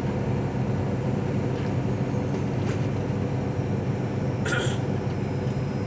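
Steady drone of a semi truck's engine and road noise heard inside the cab while driving, with one brief higher sound about four and a half seconds in.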